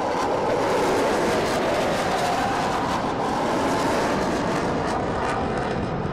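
Steady, loud jet noise from an F/A-18 fighter's twin engines running in afterburner through a hard banking turn overhead.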